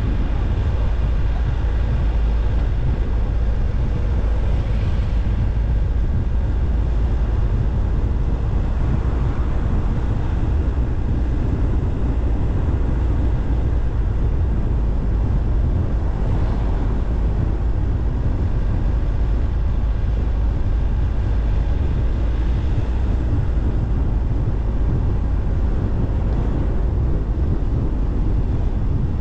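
Car driving slowly on a paved road: a steady low rumble of engine and tyre noise, with slight swells now and then.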